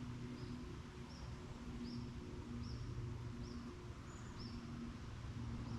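A small bird repeating a short, high chirp about every half second, over a steady low hum.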